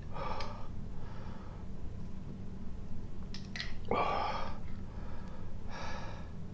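A man breathing hard through his mouth, four breaths, the loudest about four seconds in, as he pants from the burn of Carolina Reaper chilli. There are a couple of light clicks just before the loudest breath, and a steady low hum runs underneath.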